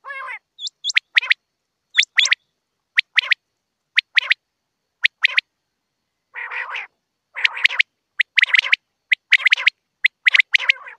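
Common quail calling: sharp, clipped notes in quick pairs about once a second, with a rasping call near the start and again about six seconds in. The calls come faster and denser over the last three seconds.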